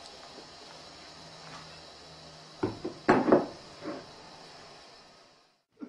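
A few short knocks and clunks, the middle one the loudest, as a glass wine bottle is set down on a wooden table, over a faint low hum.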